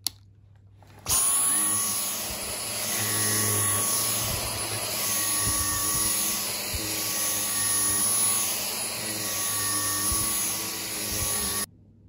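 Dyson V10 Absolute cordless stick vacuum switched on about a second in, running on its second (medium) power mode with the mini motorised tool brushing sofa upholstery: a steady rushing of air with a high motor whine. It is switched off abruptly near the end.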